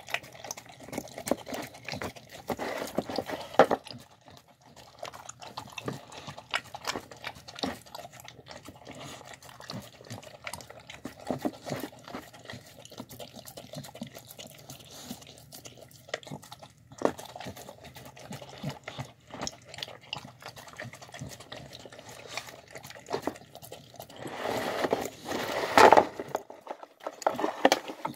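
A dog licking and chewing the last of a wet meal from a bowl: wet slurping and smacking with irregular clicks of tongue and teeth against the bowl, louder for a couple of seconds near the end.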